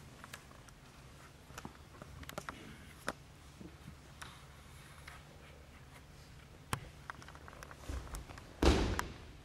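An aikido partner thrown onto the mats, landing in a breakfall: one loud thud near the end, with a smaller thump just before it. Faint scattered clicks and a low steady hum lie underneath.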